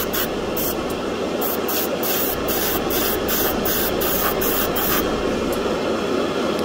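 Airbrush spraying paint, its hiss pulsing on and off several times a second.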